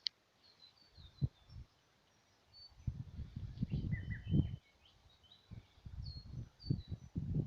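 Small birds chirping and calling in short high notes, over irregular low rumbles and thumps that begin about a second in and thicken after a few seconds.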